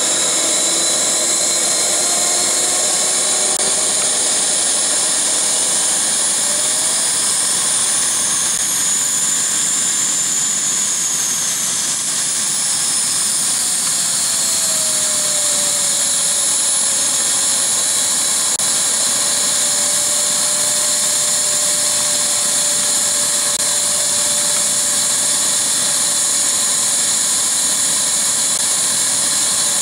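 Small model jet turbine running steadily with a high whine, its pitch shifting a little partway through.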